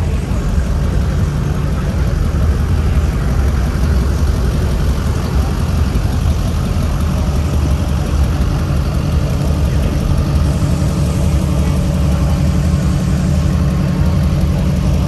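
A truck engine idling steadily with an unbroken low rumble.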